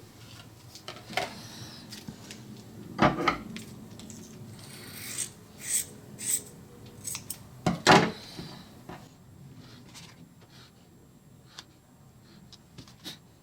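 Scissors cutting fiberglass cloth: a few short snips through the middle, with two louder knocks about three and eight seconds in.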